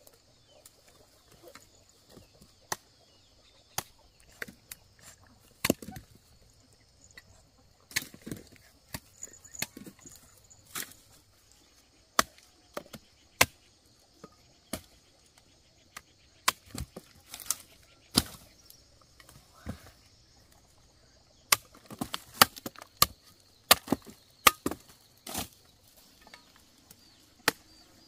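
Machete chopping cassava, hacking the tubers off their woody stems: single sharp chops at irregular intervals, with a quicker run of chops about three-quarters of the way through. A steady high buzz runs underneath.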